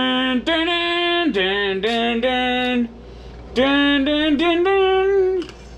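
A man singing a wordless tune in long held notes, a fanfare-like 'dun, dun' that steps up and down in pitch, with a short break about three seconds in.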